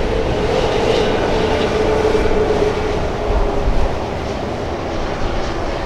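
Steady rumble of an approaching Union Pacific freight train led by EMD SD59MX diesel locomotives, mixed with passing road traffic, with a faint steady hum underneath.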